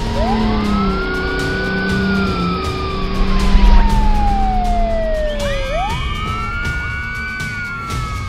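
Police car siren wailing in a slow cycle. The pitch rises quickly, falls slowly over about four seconds, then rises again and starts to fall near the end. Background music plays underneath.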